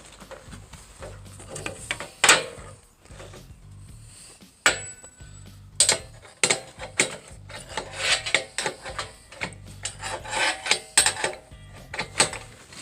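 Irregular metallic clanks, taps and scraping of hand tools working on the sawmill's steel track, a dozen or so sharp knocks spread through it with rubbing in between.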